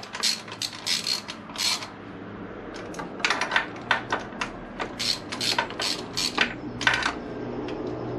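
Hand ratchet clicking in short, irregular runs as valve cover bolts are snugged down by hand.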